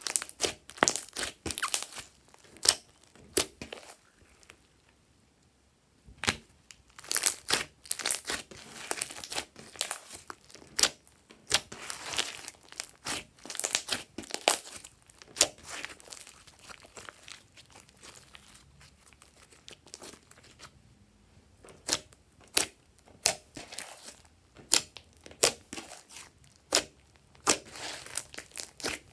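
Glossy slime squeezed, kneaded and poked by hand: a run of wet, sticky clicks and pops in bursts, with a quiet pause about four seconds in.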